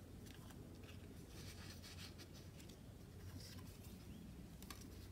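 Faint rustling and soft handling noise of paper and card ephemera pieces being picked up and arranged by hand, in a few short patches over a low steady hum.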